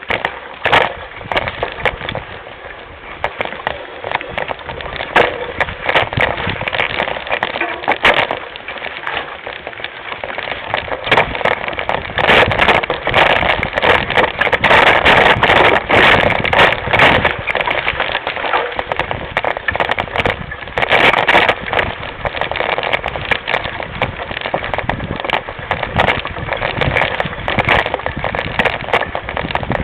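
Mountain bike riding down a rough forest trail, heard from a camera mounted on the bike: a constant rattle and clatter of the bike and mount jolting over roots and dirt, with tyre and wind noise. Louder from about twelve seconds in.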